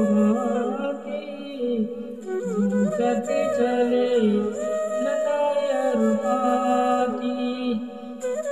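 Devotional music: a solo voice singing or humming a slow melody, with long held notes that glide between pitches.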